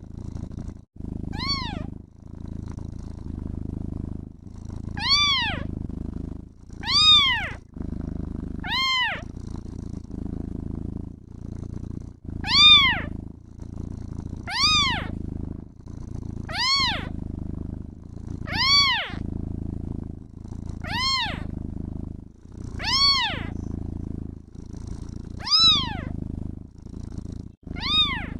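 A kitten meowing over and over, about a dozen short high meows, each rising then falling in pitch, roughly one every two seconds, over a steady purr.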